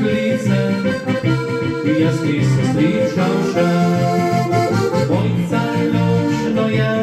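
Slovenian diatonic button accordion (frajtonarica) playing a folk tune, with a melody over a bass-and-chord accompaniment, and a man singing along.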